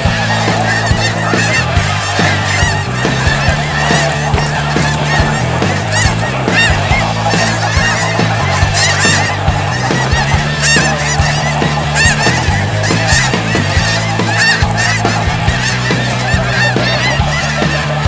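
A large flock of snow geese calling overhead, a dense, unbroken chorus of overlapping high-pitched honks.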